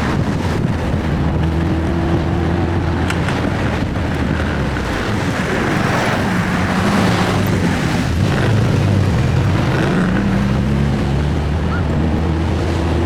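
Triumph Spitfire's 1147cc four-cylinder engine pulling the car along, its note rising and falling a few times as the speed changes, over steady wind and road noise.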